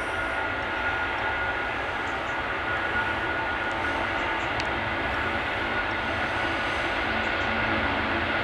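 Airbus A330 airliner's jet engines at takeoff power, a steady rushing roar with a thin high whine, heard from a distance and growing slowly louder toward the end as the aircraft rolls down the runway.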